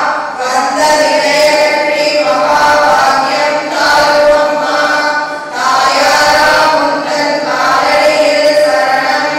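A group of women chanting a prayer together in unison, one voice leading through a microphone. The chant moves in held phrases of about two seconds, with short breaths between them.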